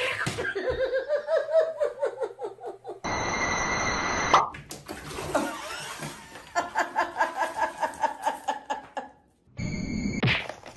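Water churning and splashing in a filled bathtub as a cat scrambles in it, with music playing. A sharp splash comes a little past the middle.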